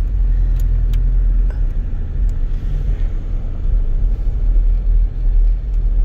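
Two Crossfire car-audio subwoofers playing loud, deep bass, a steady low rumble with a few faint clicks.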